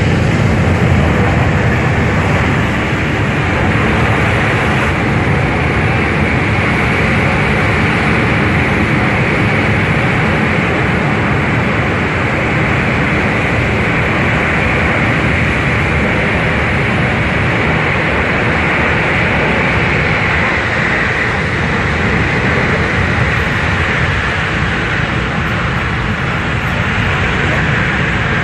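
The four Pratt & Whitney F117 turbofan engines of a C-17 Globemaster III running loud and steady in reverse thrust as the aircraft backs up on the runway under its own power.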